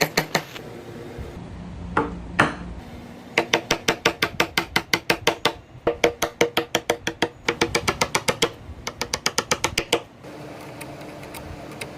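Music with a fast, wood-block-like knocking beat of about six strokes a second, over steady sustained tones; the knocking stops about ten seconds in.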